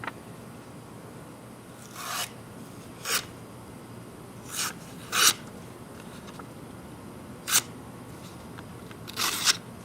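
A folding knife being handled: about six short scrapes and clicks spread out over several seconds, the sharpest click a little after the middle.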